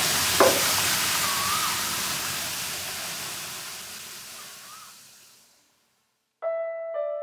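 Steady rushing background noise fades away over a few seconds into silence. About six and a half seconds in, soft music with held notes begins.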